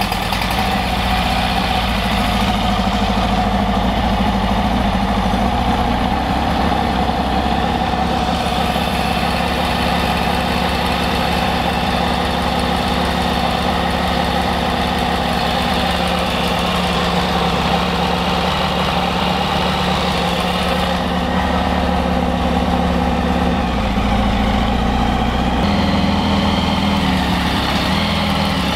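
Freshly overhauled Rotax 912 ULS flat-four aircraft engine running steadily on its first start after a new top end, with no propeller fitted and its air filters off. Its note shifts a few times as the carburettors are adjusted one at a time to synchronise them.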